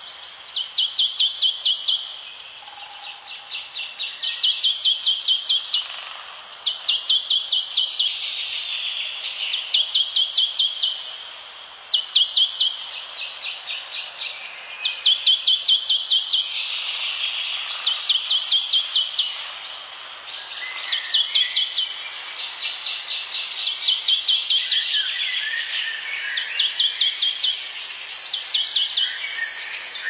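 Forest wildlife sounds: a high, rapid pulsing trill about a second long, repeated every two to three seconds, with fainter calls behind it.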